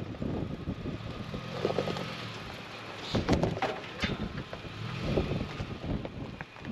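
A vehicle driving on a rough dirt road: a steady run of engine and tyre noise broken by irregular knocks and rattles, thickest about halfway through.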